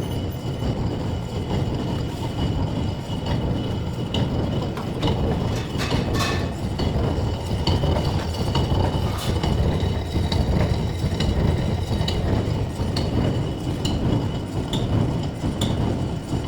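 Metal lathe running under a boring cut: a steady low rumble with a thin high whine over it and scattered metallic clicks.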